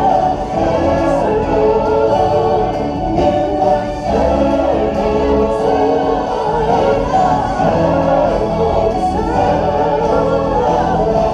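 Music with a choir singing, loud and continuous.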